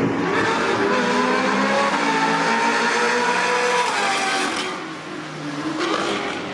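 Several supercars, a Ferrari California's V8 among them, drive past at speed on a wet track. Their engine notes rise and then drop in pitch as they go by, fade about five seconds in, and another car comes up near the end.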